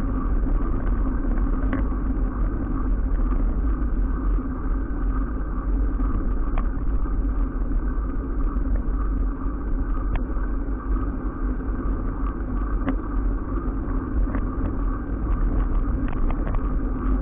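Steady rumble and wind noise from a camera riding on a moving bicycle, with tyres running on a wet road and small rattling clicks scattered through it.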